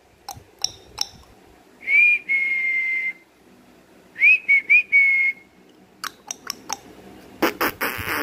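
A person whistling to call a dog: a rising whistle held for about a second, then three short rising chirps and another held note. Before and after come a few short clicking or kissing sounds, and a brief burst of noise near the end.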